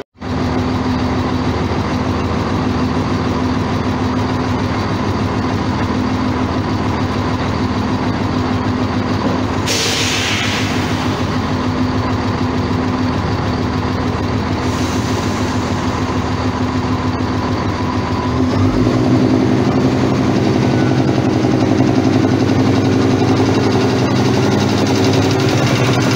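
Chiltern Railways Class 168 diesel multiple unit's engines running steadily at close range. About ten seconds in there is a short hiss of released air, and a few seconds before the end the engine note steps up and gets a little louder.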